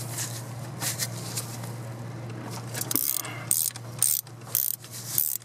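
3/8-inch drive ratchet backing out already-loosened cylinder head bolts on a 6.5 turbo diesel. After a few scattered clicks, the pawl starts clicking in short bursts about twice a second about three seconds in. A steady low hum runs underneath.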